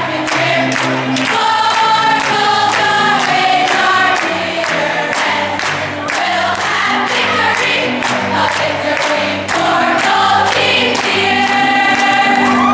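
A group of children singing together over a backing music track with a steady beat.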